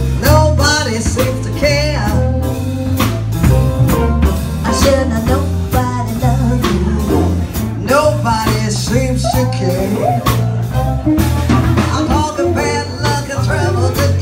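A live band playing a song. A woman sings into a microphone over electric bass and electric guitar, with a steady beat.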